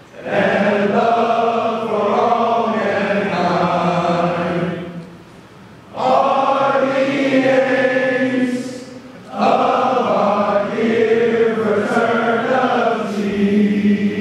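A large group of men singing a slow song together in unison, in three long held phrases with short breaks between them.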